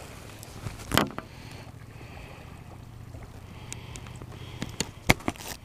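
Wind rumbling on the microphone, with a few sharp knocks and rustles from handling a fishing rod and a towel-wrapped pinfish while the hook is worked out. The loudest knock comes about a second in, and a few more come near the end.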